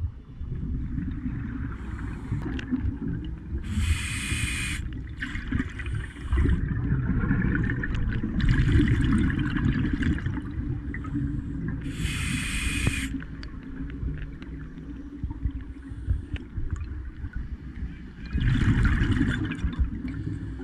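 Scuba diver breathing through a regulator underwater: about four bursts of exhaled bubbles, each about a second long, a few seconds apart, over a steady low rumble of water.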